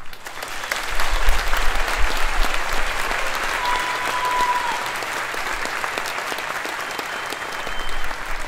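Audience applauding, loudest in the first couple of seconds and easing off slowly, with a brief held whistle about four seconds in.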